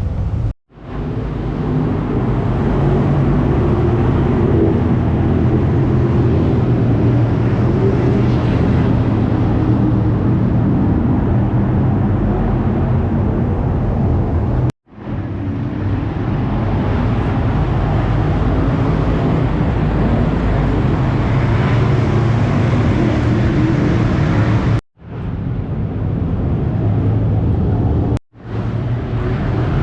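410 sprint car V8 engines running loud and steady. The sound drops out abruptly three times and fades back in each time.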